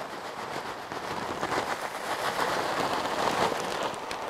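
Flaked corn being poured slowly into a stock pot of hot mash: a dense, even patter of flakes that swells a little in the middle.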